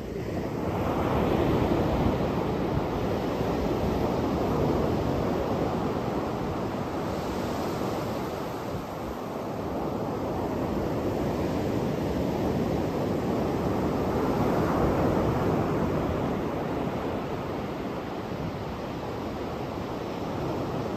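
Surf breaking and washing up a sandy beach: a steady rush that swells and eases every few seconds.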